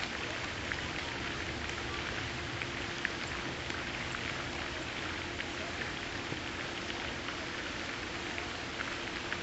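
A steady hiss with a faint steady hum underneath and scattered faint ticks.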